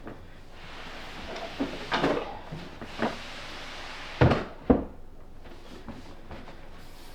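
Wooden flat-pack furniture being handled: a scraping hiss with a few knocks, then two heavy wooden thumps about four seconds in.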